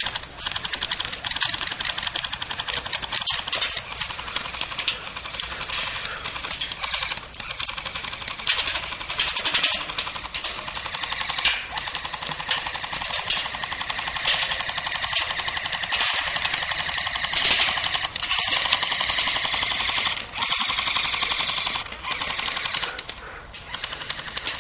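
Airsoft guns firing rapid full-auto bursts, one stretch after another: a fast rattle of clicks with short breaks between bursts.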